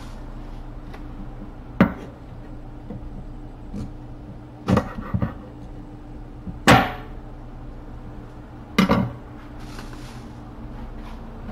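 Sharp knocks of kitchen utensils on a bamboo cutting board: four bursts, some doubled into quick clatters, the loudest about two-thirds of the way through, over a steady low hum.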